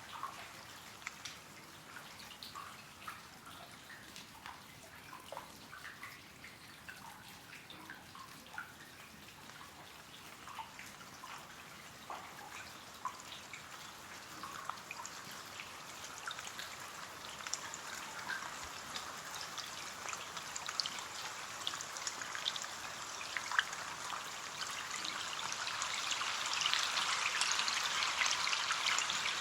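Rain pattering on a window pane, individual drops ticking against the glass over a soft hiss; the rain grows heavier and louder over the last several seconds.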